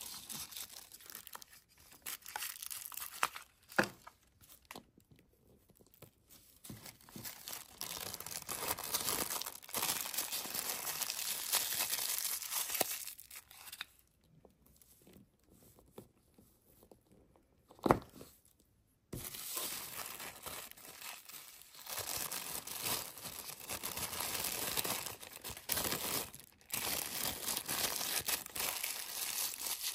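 Tissue paper crinkling and rustling as it is folded and wrapped by hand, in stretches with short pauses, and two sharp clicks.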